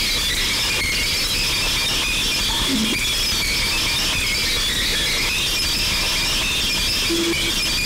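Steady, shrill noise with a flickering high band, starting suddenly and holding an even level, with no drums or bass notes in it.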